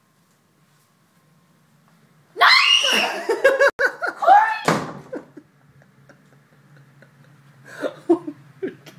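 A woman shrieking and laughing in fright at a large cockroach, starting a little over two seconds in and lasting about two and a half seconds, cut off by a sharp thump. A few short, quieter laughs follow near the end.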